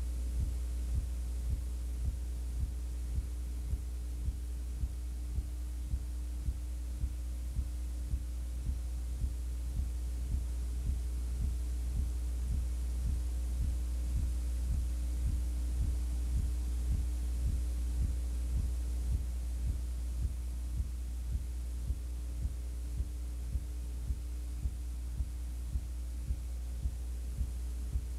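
Steady low electrical hum with a soft, regular throb about one and a half times a second; no game or crowd sound is heard.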